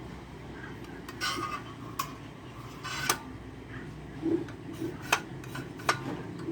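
Sharp clicks and knocks, with a few short rustling scrapes, from the plastic and metal parts of a new power tool being handled and worked.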